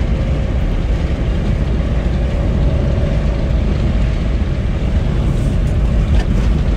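Car driving, heard inside the cabin: a steady low rumble of road and engine noise.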